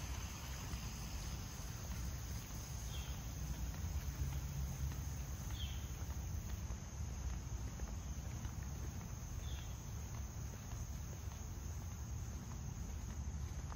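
A steady outdoor insect chorus, crickets chirring high and continuous, over a low rumble. Three faint short chirps come through about three, six and nine seconds in.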